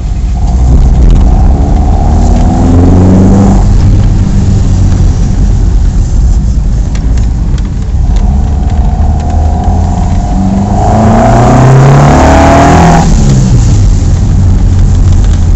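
Ford Escort Mk3 1.6 four-cylinder engine on twin Weber 40 DCNF carburettors, heard from inside the cabin while driving under load. Twice the revs climb with a rising pitch and then drop back suddenly, about three seconds in and again near thirteen seconds, as at gear changes.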